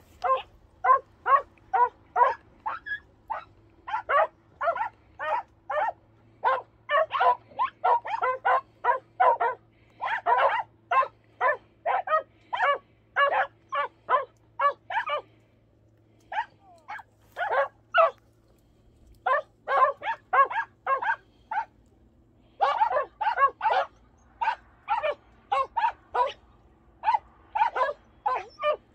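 Podenco hunting dog barking in a rapid, steady string, about two to three barks a second, with two short breaks. This is the hound giving tongue at game it has found hidden in a bramble thicket.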